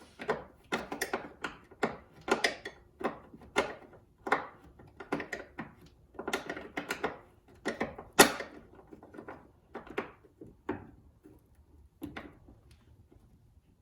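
Hand tools clicking and clinking against metal line fittings as the braided brake and fuel lines are fitted and tightened: a run of short, sharp clicks at an uneven pace, some in quick clusters, with one louder knock about eight seconds in.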